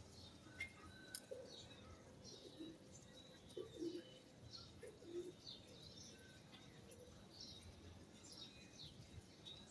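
Faint bird activity: small birds chirping in quick, short, falling notes throughout, with a few low cooing calls in the first half.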